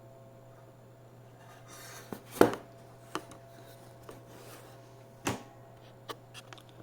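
Handling noise on a desk: a few sharp knocks and clicks of small hard objects being picked up and set down, the loudest about two and a half seconds in, over a faint steady hum.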